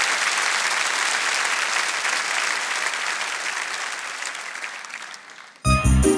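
Studio audience applauding, the clapping slowly fading away. Near the end, backing music with a beat and bell-like tones starts abruptly.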